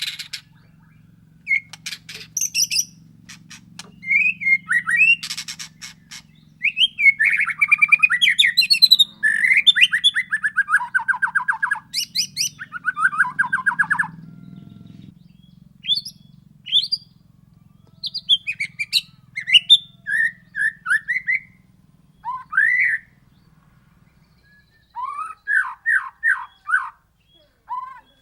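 White-rumped shama singing a long, varied song: whistled phrases, rising and falling glides, fast rattling trills and sharp high notes, in bursts with short pauses.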